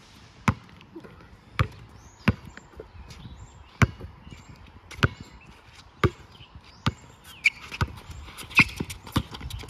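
Basketball bouncing: about ten sharp bounces, irregularly spaced roughly a second apart.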